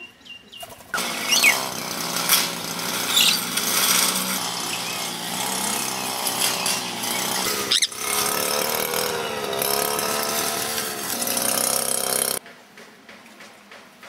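A small engine or power tool running loudly. It starts suddenly about a second in, drops out briefly about two-thirds of the way through, and stops suddenly near the end. A few short bird squawks sound over it in the first few seconds.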